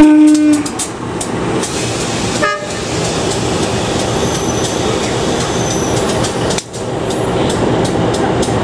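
Diesel locomotive horn giving one short toot, followed by the steady running noise of a train. A second, shorter and fainter toot comes about two and a half seconds in.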